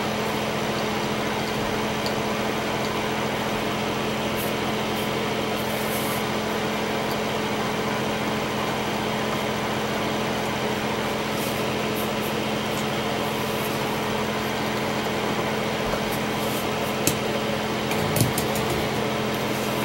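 Steady machine hum and hiss, like a running fan, with a few faint clicks near the end.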